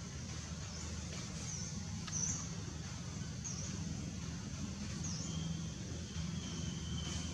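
Outdoor ambience: a steady low rumble under short, high chirps that repeat about once every second or so, with a thin steady high whistle in the second half.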